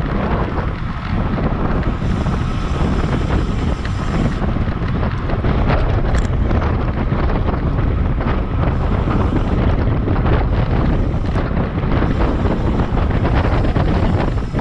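Wind buffeting the microphone of a camera on a road bike moving at about 25 to 28 mph: a loud, steady rumble that never lets up.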